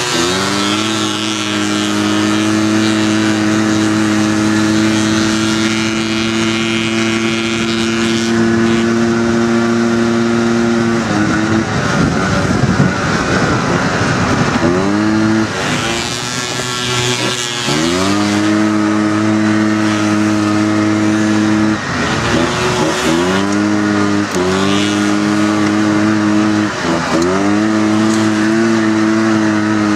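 Single-cylinder four-stroke engine of a Honda off-road buggy running hard at high, steady revs, falling away briefly as the throttle is lifted about eleven seconds in and several more times in the second half, revving back up each time.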